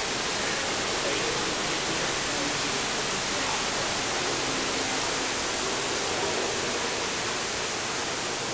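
Steady rushing of water, an even unbroken roar like a waterfall, heard from a boat gliding through a dark ride grotto.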